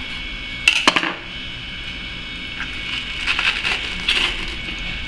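A knife working through the rib section of a tilapia held in a cloth: two sharp clicks about a second in, then softer scratchy scraping a few seconds later as blade, bones and cloth rub together.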